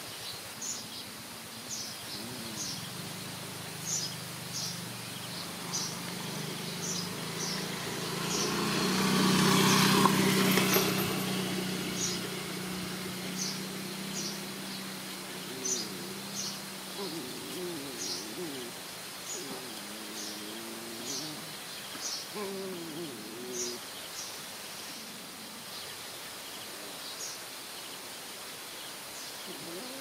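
A small bird chirping over and over, about two short high chirps a second. About ten seconds in, a passing motor vehicle swells and fades. Later come short, bending whines and yelps from the playing puppies.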